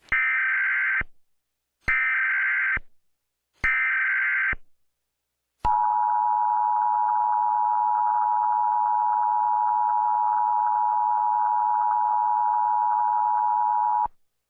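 Emergency Alert System SAME header: three bursts of rapid digital data tones, about a second each. About six seconds in comes the EAS attention signal, a steady two-tone alarm of 853 and 960 Hz, held for about eight seconds before cutting off abruptly.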